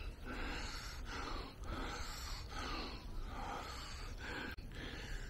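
A man's heavy breathing as he climbs a trail on foot: soft rushes of breath in and out, about six in five seconds.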